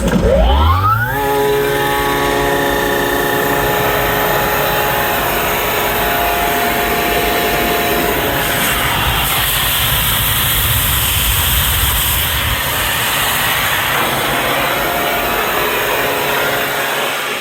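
Sullair 75 HP rotary-screw air compressor airend starting up, its whine rising in pitch over about a second, then running steadily with a loud hum, several steady tones and a strong air hiss. The airend turns and compresses normally, showing that the pump works.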